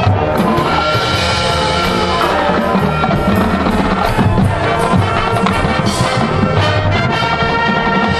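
High school marching band playing loudly: a brass ensemble over drums and percussion.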